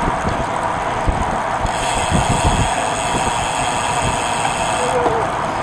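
Wind and road noise on the microphone of a camera riding along on a moving road bike, steady, with uneven low buffeting from the wind.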